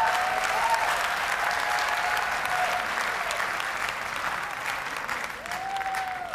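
Dog-show audience applauding, easing off a little toward the end, with a couple of drawn-out cheers rising above the clapping, one near the start and one near the end.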